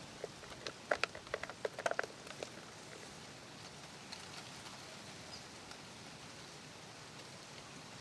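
Steady patter of rain, with a quick run of small clicks and taps in the first two and a half seconds.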